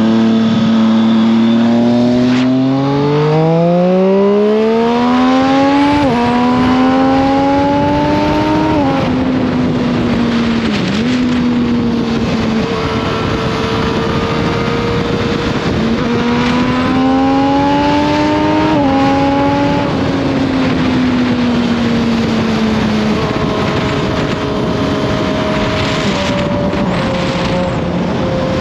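Triumph Street Triple 765 RS three-cylinder engine pulling hard through the gears while riding: its pitch climbs and drops back at each upshift, settles to a steady cruise, climbs through the gears again a little after halfway, then eases off near the end, over wind noise.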